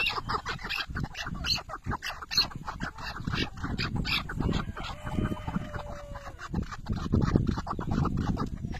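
Caged chukar partridge calling: a rapid, continuing series of short, harsh clucking notes.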